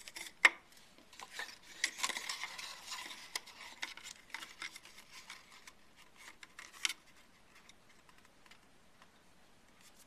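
Folded cardstock being handled and shifted on a table: paper rustling with scattered sharp clicks and taps, the loudest about half a second in, and a denser rustle from about two seconds to three and a half.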